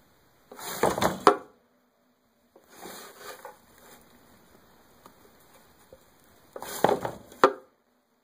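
Pet rabbit rattling and shifting its wooden hideout house on wood-shaving bedding. There are two loud bouts of rustling and scraping, each ending in a sharp wooden knock, and a quieter rustle between them.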